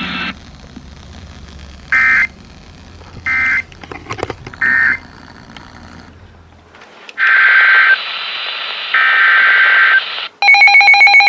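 Emergency Alert System SAME digital data bursts from a weather radio broadcast. Three short, identical bursts about a second apart (the end-of-message code that closes the warning) are followed by two longer bursts over a hiss. Near the end, a loud pulsing alert tone begins.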